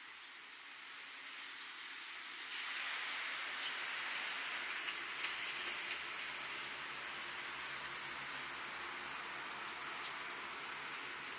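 Steady outdoor hiss with no pitched sound in it, swelling about two and a half seconds in and then holding, with a couple of faint ticks near the middle.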